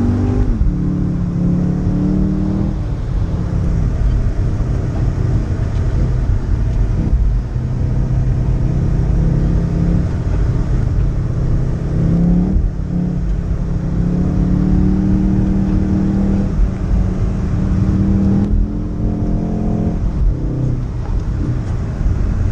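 Volkswagen Golf R's turbocharged four-cylinder engine heard from inside the cabin, pulling along at speed. Its pitch steps up and down a few times with gear changes, over a steady low road and tyre rumble.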